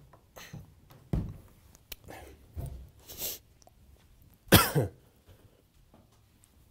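Scattered bumps and shuffling as a person pushes a large flat-screen TV on its stand and moves past it, with one loud, short vocal sound falling in pitch about four and a half seconds in.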